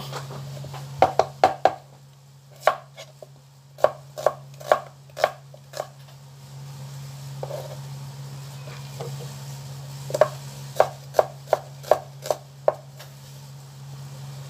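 Kitchen knife chopping on a cutting board: three runs of sharp, quick strokes with pauses between them, over a steady low hum.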